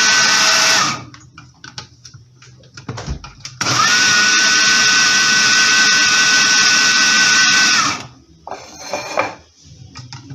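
Electric mixer beating eggs with sugar and a pinch of salt: a short run that stops about a second in, then a longer run of about four seconds with a steady whine that rises as it starts and drops as it stops. Light knocks come between and after the runs.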